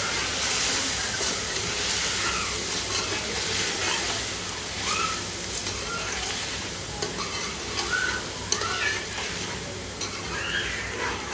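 A spoon stirring and scraping chicken and masala around an aluminium pot, with the food sizzling as it fries on the gas flame.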